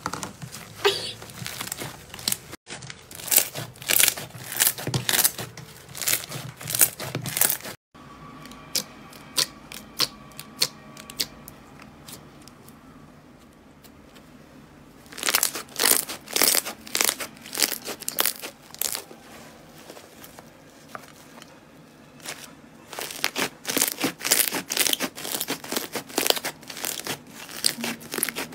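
Hands stretching, squeezing and kneading slime: quick runs of sticky popping and crackling clicks, quieter for several seconds partway through.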